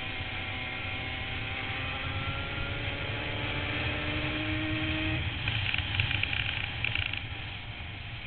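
Racing quad engines running, their pitch gliding slowly upward over the first five seconds above a steady low rumble. A spell of rattling clatter follows from about five and a half to seven seconds in, the loudest part.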